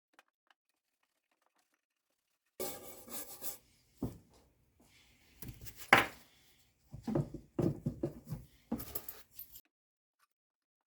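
Near silence at first, then about seven seconds of scattered handling noise: rubbing, clinks and knocks, with one sharp knock about six seconds in.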